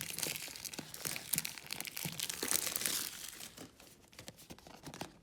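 Packaging on a speedcube box being torn and crinkled open: a dense crackle of tearing and crumpling, heaviest for about three seconds, then thinning out.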